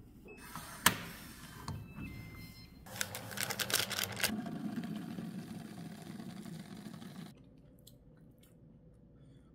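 Digital door-lock keypad beeping at different pitches as a code is entered, with one sharp click about a second in. Then, about three seconds in, a foil seasoning packet crinkling as it is torn open and shaken, fading to a softer rustle.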